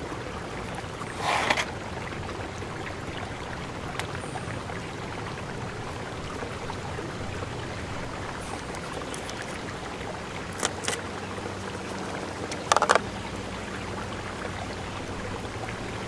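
Steady outdoor background hiss, with a few short rasping noises: one about a second in and two more near the end.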